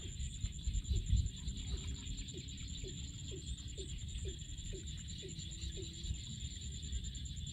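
Steady, rapidly pulsing high-pitched insect trill, with a run of short, low, falling calls about twice a second through the middle, over a low rumble of wind on the microphone.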